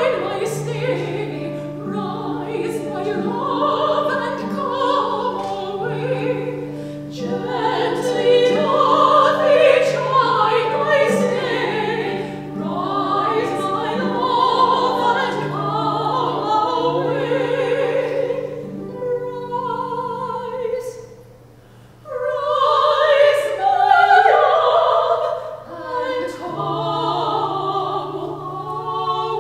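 Classical singing in a live performance of a choral cantata, voices over steady held low notes from the accompaniment. The music drops away briefly about three quarters of the way through, then the singing comes back louder.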